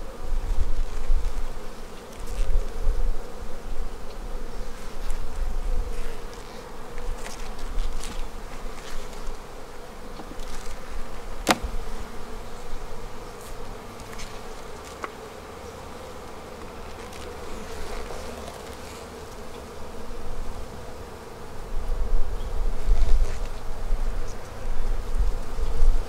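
Honeybees buzzing in a steady hum over an open hive, swelling louder near the end as the colony grows agitated. One sharp click about eleven seconds in, and low rumbling near the start and near the end.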